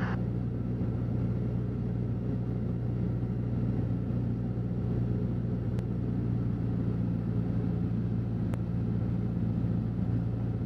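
Piper Warrior's four-cylinder engine and propeller droning steadily, heard inside the cockpit at reduced power on final approach. Two faint clicks come through, about six and eight and a half seconds in.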